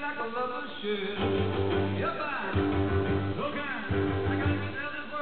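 Rock music with guitar, played back from a cassette on a Technics RS-BX727 three-head cassette deck.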